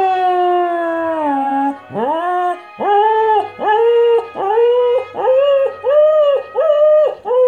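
Cocker spaniel howling along to a TV theme tune: one long howl sliding down in pitch, then a run of about eight short howls, each about half a second, slowly climbing in pitch.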